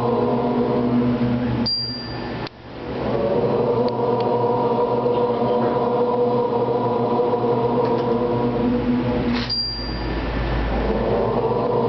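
A sustained drone of several held pitches. It breaks off briefly about two seconds in and again near ten seconds, each time swelling back in.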